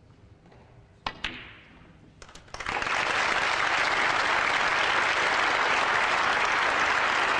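A snooker cue strikes the cue ball with a sharp click and a ball clicks off it a moment later, followed by a few light knocks; then the crowd breaks into loud, steady applause as the break passes a hundred.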